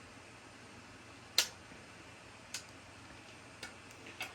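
A few isolated sharp clicks and taps as shoe rack parts are handled during assembly: one louder knock about a second and a half in, then fainter ticks.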